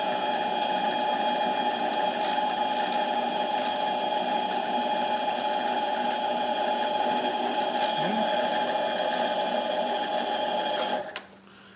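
Harbor Freight mini lathe running with a steady whine from its motor and gear train while turning a Briggs & Stratton camshaft journal. It shuts off about eleven seconds in, with a click.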